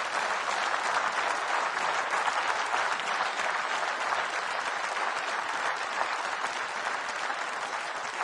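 A large audience applauding: dense, steady clapping that eases off a little toward the end.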